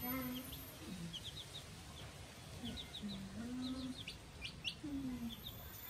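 Young chicks peeping: short high chirps, singly and in quick runs of two or three, scattered through, with a few lower drawn-out tones underneath.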